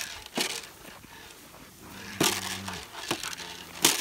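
Three sharp crunching thumps, about half a second in, just past two seconds and near the end, from someone moving fast on foot through pasture grass with a handheld camera. Between them comes a low, steady droning tone lasting about a second, with a shorter one after it.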